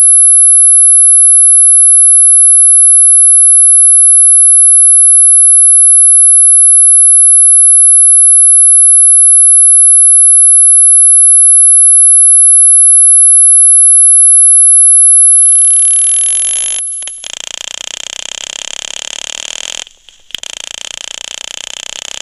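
A single piercing, very high-pitched steady electronic tone, loud and unchanging, held for about seventeen seconds and then cut off. From about fifteen seconds in, a harsh buzzing hiss comes in and carries on to the end, dropping out briefly twice.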